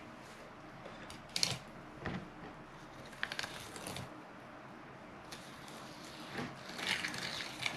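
Fillet knife cutting and scraping along a fluke's backbone and bones, with scattered short crackling scrapes and a longer stretch of scraping near the end.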